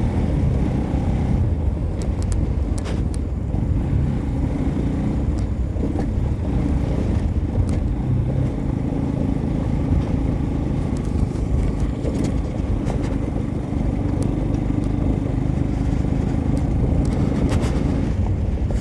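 Motorcycle engine running steadily while riding over a rough dirt road, with scattered sharp knocks and rattles.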